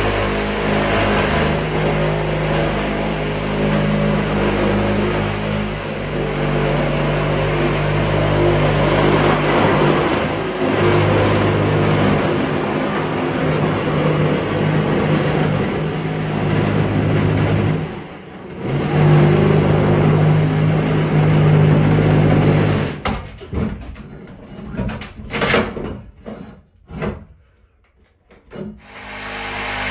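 Corded oscillating multi-tool cutting through the front wall of a bathtub, running steadily with a droning tone for most of the time, then switched on and off in short bursts near the end.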